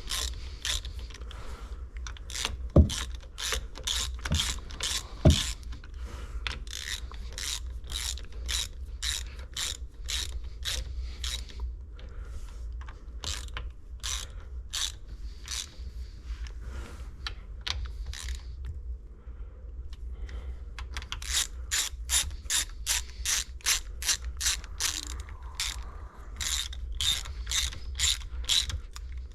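Hand ratchet clicking in runs of about three clicks a second, with a short pause partway through, as the water pump bolts on a 3.0 MerCruiser engine are tightened a little at a time in a crisscross pattern. Two sharper knocks come early on.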